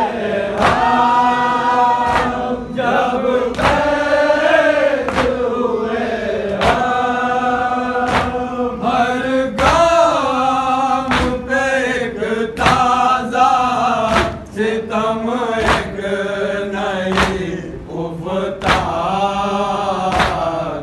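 Group of men chanting a noha, a Shia lament, in unison, with sharp chest-beating slaps (matam) keeping a steady beat about once a second.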